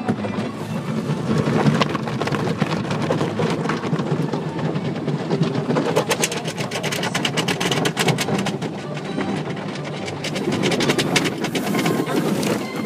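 Automatic car wash heard from inside the car: water jets and cloth brushes washing over the body and windows in a steady rush, with spells of rapid spattering about six seconds in and again near the end.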